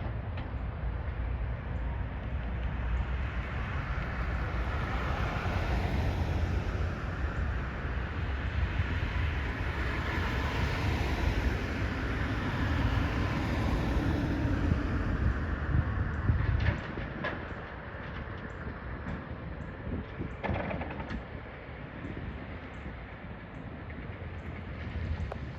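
Steady low rumble of a heavy vehicle's engine with outdoor noise, building slowly and then dropping off suddenly about two-thirds of the way in, leaving a fainter rumble with a few light clicks.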